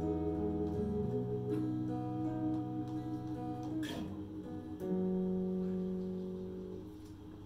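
Slow ambient music from an electric guitar and keyboard: long, sustained chords that change a few times and fade out near the end.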